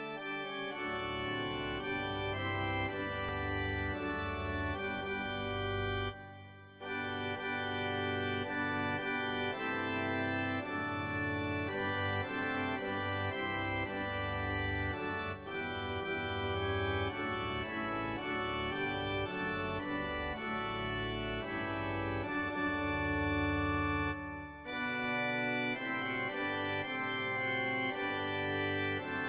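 Instrumental Christmas music: held chords over a steady bass line. It breaks off briefly twice, once about six seconds in and again about twenty-four seconds in.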